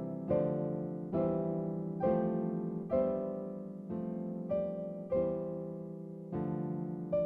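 Background music: a slow piano piece, with chords struck about once a second and each left to ring and fade.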